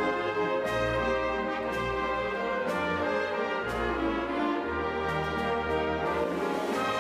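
Orchestral music with brass, sustained chords changing about once a second over a low bass.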